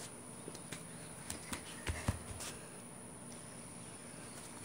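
Scattered light taps and a couple of louder soft thumps about two seconds in, from a barefoot child's hands and feet on a concrete patio as he gets up and moves off, over a faint steady hiss.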